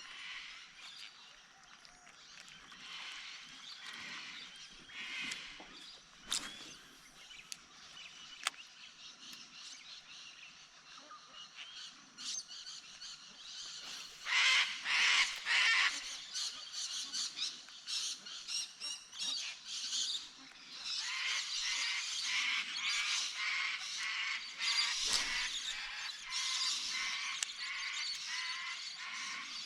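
Outdoor wildlife chorus of rapid, high-pitched pulsed calls, louder about halfway through and again through the second half.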